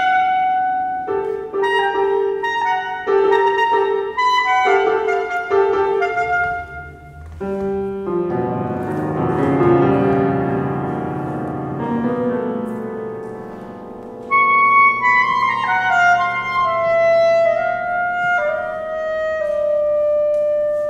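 Clarinet and grand piano playing classical chamber music. Separate short clarinet notes over piano chords give way after about seven seconds to a stretch of dense, ringing piano chords, and about two-thirds of the way through the clarinet comes back in with held notes that step downward.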